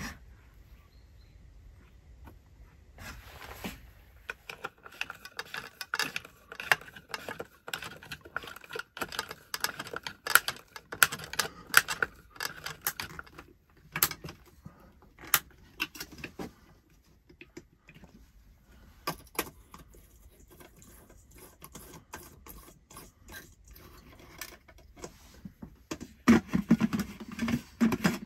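Hands working a ceiling light fitting against a log beam: many small clicks and taps of the plastic socket and globe, with a louder stretch of rubbing and scraping near the end.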